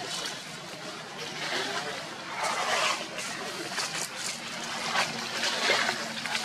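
Dry leaf litter rustling and crackling in irregular swells as macaques move over it.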